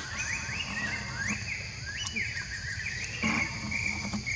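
A quick series of short, high, rising chirping calls from an animal, a few per second, running into a longer held call about three seconds in, over a steady high drone of insects.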